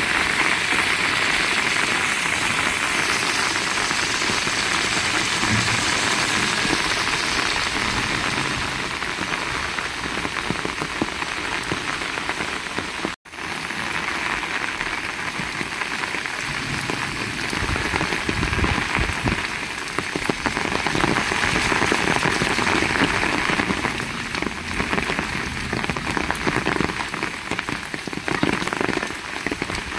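Heavy rain falling in a steady, dense hiss. The sound cuts out for a split second about 13 seconds in.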